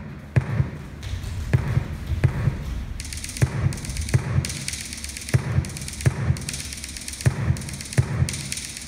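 Rhythmic beat of deep thumps, mostly in pairs about once a second, with a high hissing layer that comes in about three seconds in.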